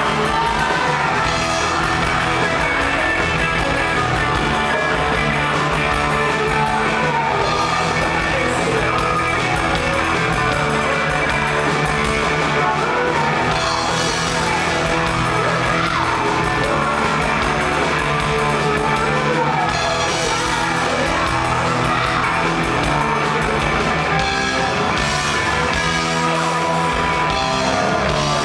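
Live rock band playing loudly and continuously: distorted electric guitars, bass guitar and drum kit.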